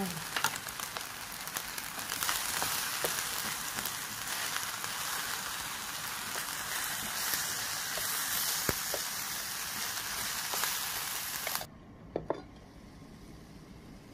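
Fried rice sizzling steadily while chopsticks stir it, with scattered small clicks. The sizzle cuts off abruptly near the end, leaving a faint hiss.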